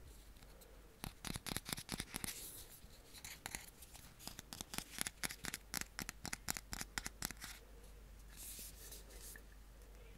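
Fingertips and nails scratching and flicking along a ridged plastic object held against the microphone: a fast, irregular run of sharp clicks. Near the end comes a short hiss of about a second.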